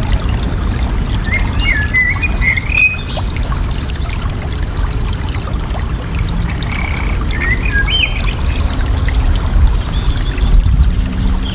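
Water flowing and splashing in a steady rush, with a songbird calling over it in two short warbled phrases, about a second in and again a little past the middle.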